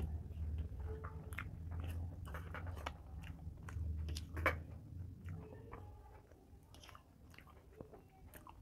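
A person chewing a mouthful of rice and cooked vegetables close to a clip-on microphone, with small clicks from the mouth and from fingers mixing food on a steel plate. The chewing is louder for the first half and fades after about six seconds.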